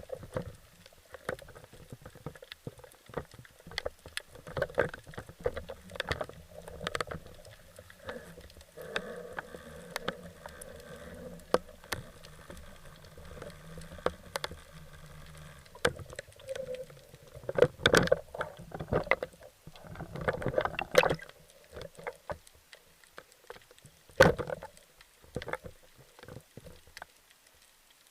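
Water sloshing and gurgling around a spearfisher, recorded through a waterproof action camera's housing, with many irregular sharp clicks and knocks and a few louder splashy bursts in the second half. A faint low hum runs underneath through the middle.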